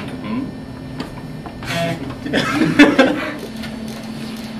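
Brief indistinct voices with a little chuckling, loudest around two to three seconds in, over a steady hum.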